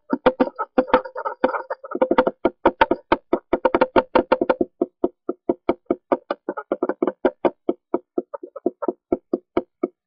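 A pair of red-bellied woodpeckers tapping together on the wooden walls inside a nest box, a quick run of knocks at about six a second that thins out and grows quieter near the end. This mutual ritualized tapping is a pair-bonding display that signals the female's acceptance of the nest box.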